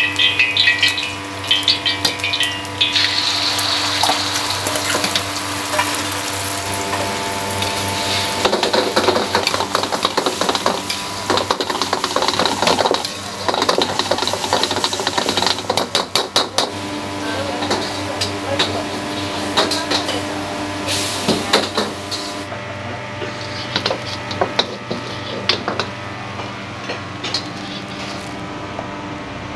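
Restaurant kitchen at work: metal utensils clanking against pots and pans, with running water and sizzling, over a steady hum. The hiss falls away about three-quarters of the way through, leaving the clatter and hum.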